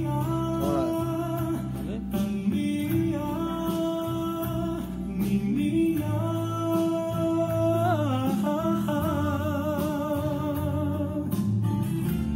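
A song with a singer holding long, drawn-out notes over instrumental accompaniment, the voice wavering on the held notes in the second half.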